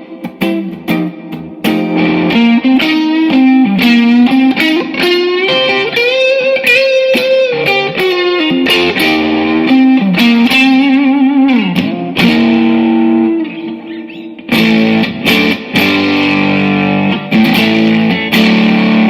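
Electric guitar played through a Yamaha THR10 preamp into a Fender Bronco Tweed amp: a single-note lead with vibrato and string bends, a sliding drop in pitch a little past halfway, then rhythmic chords near the end.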